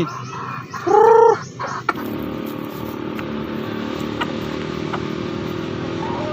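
A rooster calls once about a second in. A steady engine hum follows and runs on.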